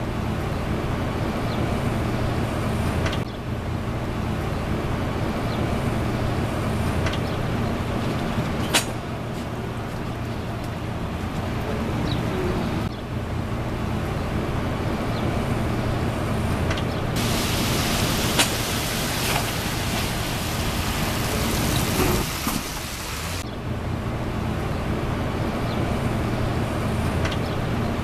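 Street traffic on rain-soaked roads: a steady low rumble of vehicles with the hiss of tyres on wet pavement, cutting abruptly a few times. The hiss is louder for several seconds past the middle, with a couple of sharp clicks.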